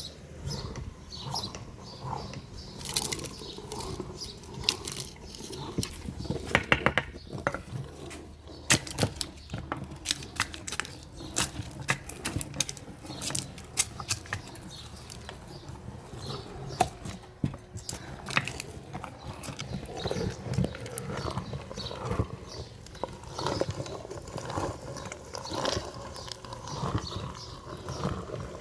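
Meat grinder crushing candy and hard plastic: irregular crunching with many sharp cracks and snaps, a burst of loud cracks about a quarter of the way in, over a low steady rumble.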